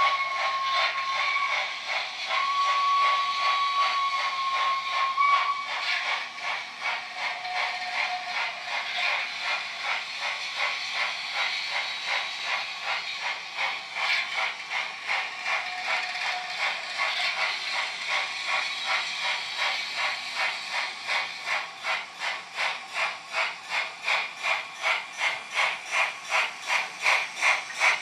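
Digital sound of a REE Modèles 231 PLM Pacific model steam locomotive, from its ESU LokSound decoder's small loudspeaker. A steam whistle ends about a second in and blows again, longer, from about two to five seconds. Then steady steam chuffs and hiss follow, the beats growing louder and sharper as the loco approaches, about three a second near the end.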